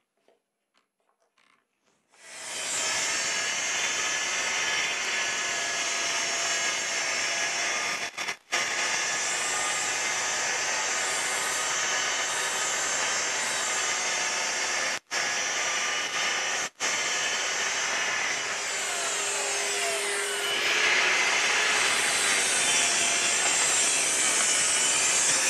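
Festool plunge-cut track saw starting up about two seconds in and running steadily as it cuts along its guide rail through a sheet of plywood. It breaks off very briefly three times and gets louder and brighter in the last few seconds.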